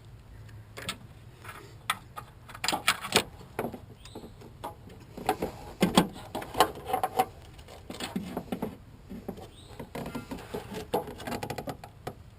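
Irregular plastic clicks and rattles in clusters of zip ties being threaded and pulled tight around an HID headlight ballast.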